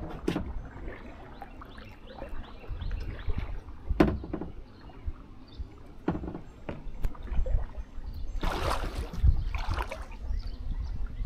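Kayak paddling on a river: a few sharp knocks early and midway, then two splashy paddle strokes in the water near the end, over a low rumble of wind on the microphone.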